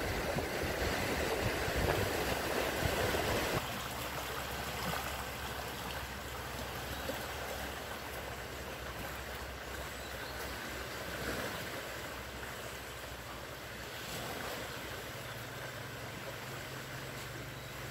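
The swollen River North Tyne in spate after heavy rain: fast, turbulent floodwater rushing over rocks in a steady rushing noise, which drops a little in level about three and a half seconds in.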